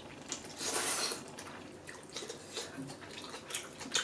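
Udon noodles slurped once from a bowl, a short wet hiss about a second in, followed by a few soft wet mouth clicks of chewing.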